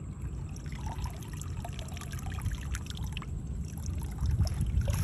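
Water trickling and splashing as a wet cast net is hauled up by hand out of shallow pond water, over a steady low rumble.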